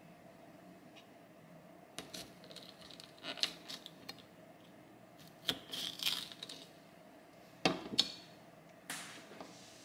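Kitchen food-prep sounds: scattered light knife taps and knocks on a cutting board and small clinks, irregularly spaced, as a vegetable is cut into strips and the pieces are arranged on the toast. Two sharper knocks near the end are the loudest.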